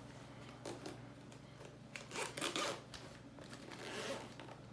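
Zipper of a fabric travel bag being worked open in several short, scraping pulls, hard going because fabric is catching in the zipper.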